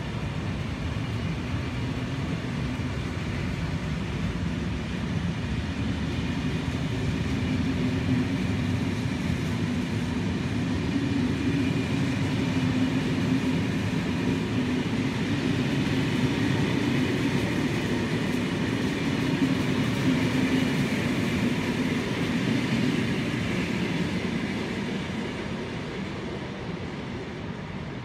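SNCF TER train of Corail coaches worked by a BB 22200 electric locomotive, moving through the station: a steady rumble of wheels and running gear with a low hum. It grows louder through the middle and fades near the end as the train draws away.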